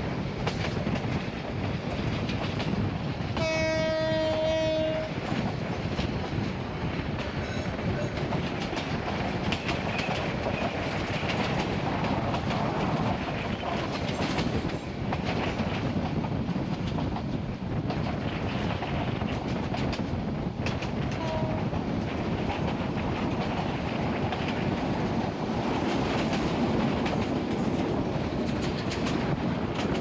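Moving passenger train, heard from inside a carriage: steady running noise with wheels clattering over the rail joints. About three and a half seconds in, a horn sounds once for about a second and a half.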